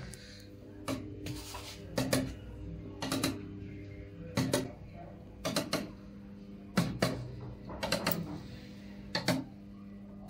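A hanging wooden bench swing swaying on its metal chains, which clink and creak in short knocks about once a second, often two close together at each turn of the swing.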